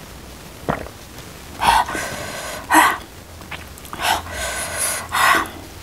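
A woman blowing out hard, open-mouthed breaths, four or five in a row, as she reacts to the burn of extra-spicy chilli food.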